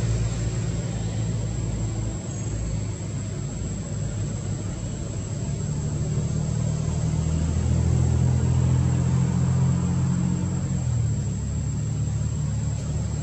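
A motor vehicle's engine running, a low steady rumble that rises in pitch and gets louder from about six seconds in, then settles back near the end. A thin, steady high tone sounds throughout.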